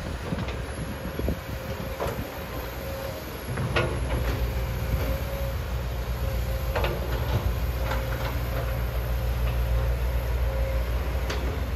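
Komatsu PC200 hydraulic excavator's diesel engine running under working load, its low drone getting louder about three and a half seconds in as the arm digs. A faint steady whine runs through it, with a few sharp clanks of metal and stone.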